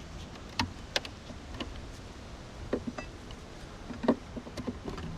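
Irregular clicks and knocks of wooden frames being loosened and shifted in a beehive's honey super, the loudest about four seconds in.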